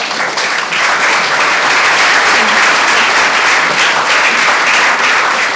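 Audience applauding, dying down near the end.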